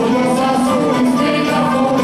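Extremaduran folk music played live by a folk group, with voices singing over the band's accompaniment.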